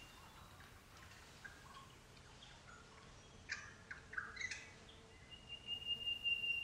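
Forest birds calling: a few short chirps a little past the middle, then a thin, steady high note held near the end, over faint outdoor background hiss.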